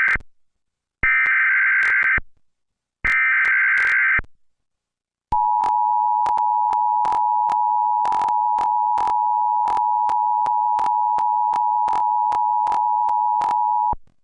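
Emergency Alert System signal: the tail of one burst of buzzy digital header tones, then two more bursts about a second long, a second apart, followed by the steady two-note attention tone for about nine seconds, which cuts off abruptly near the end. The header bursts and attention tone announce an emergency broadcast, here an Amber Alert.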